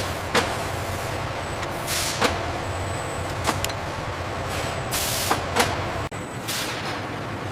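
Industrial machinery noise: a steady low hum broken by three short bursts of hiss and several sharp clicks.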